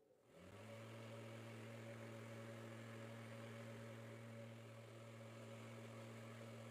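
Faint hum of a small DC fan motor spinning up about half a second in, then running steadily.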